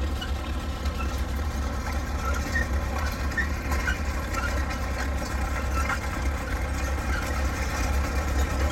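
1920s Cletrac crawler tractor's Model A Ford four-cylinder engine running steadily with a low, even exhaust note as the crawler creeps along on its tracks.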